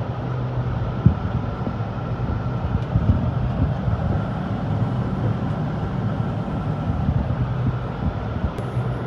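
Tractor engine running steadily under load, with one sharp knock about a second in.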